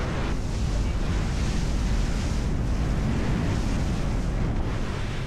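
Steady wind buffeting the microphone over the rush of water on a speedboat.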